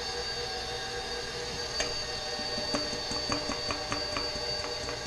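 KitchenAid stand mixer running on low, mixing thick cake batter, with a steady motor hum. From about two seconds in, a rapid, regular clicking joins it, about five clicks a second.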